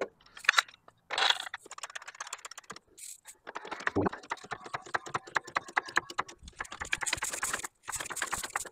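Floor jack being worked to raise the car: a long, fast run of metallic clicks and rattles with a few heavier knocks.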